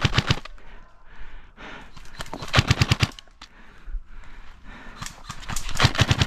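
Airsoft electric rifle firing three short full-auto bursts of rapid clicking shots, the second about two and a half seconds in and the third near the end.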